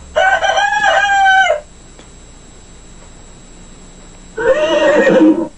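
Two rooster crows: a loud call of about a second and a half just after the start, and a second, shorter call near the end.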